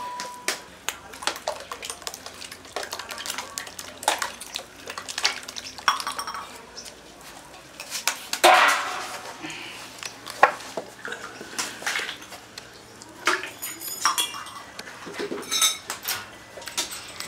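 Aluminium cooking pots and metal utensils clinking and knocking: short sharp taps at irregular intervals, with a longer scraping burst about halfway through.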